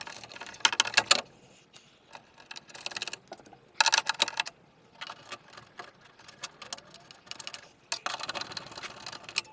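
Metal nuts being run back onto a steel shield's studs with a nut driver: quick metallic clicking and ticking in several short runs with pauses between.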